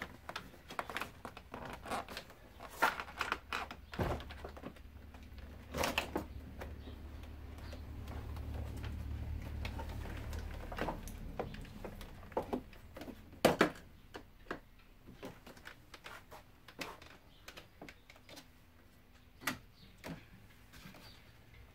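Plastic clicks, snaps and knocks as a car's interior door trim panel is pulled off its retaining clips and lifted away from the door, with a low rumble through the middle few seconds and a sharp knock about two-thirds of the way through.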